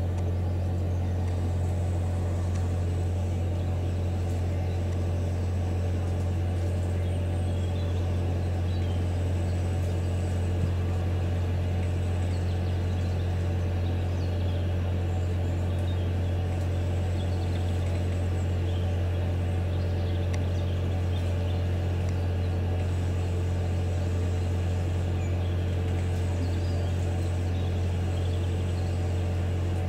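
Steady low engine drone that does not change in pitch or level, with faint bird chirps above it.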